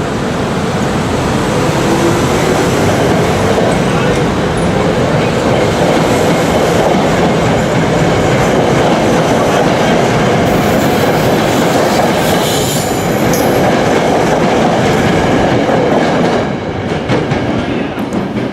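SEPTA Silverliner IV electric multiple-unit train running past, a loud steady rumble of wheels on rail with a brief high hiss in the middle. The rumble drops off about sixteen seconds in, leaving the wheels clicking over rail joints.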